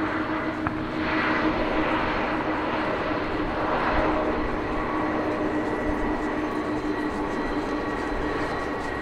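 Boeing 747 Dreamlifter's four turbofan engines running at low power as the jet taxis, a steady rushing hiss with a held whine over it. The sound swells slightly about a second in and again around four seconds.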